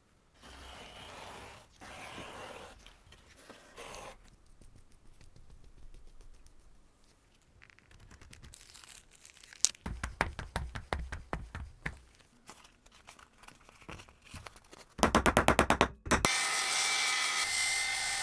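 Workshop tool work on metal: scraping and rubbing, then a run of sharp clicks and a fast rattling burst, and near the end a power tool running steadily with a whine.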